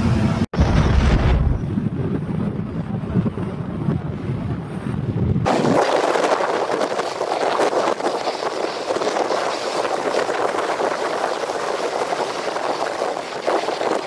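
Rushing river rapids heard under heavy wind rumble on the microphone. About five seconds in, the sound cuts abruptly to a steady, higher hiss.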